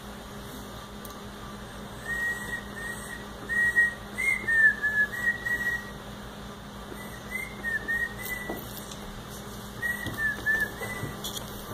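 A person whistling a tune in three short phrases of quick notes with small slides between them, pausing between phrases.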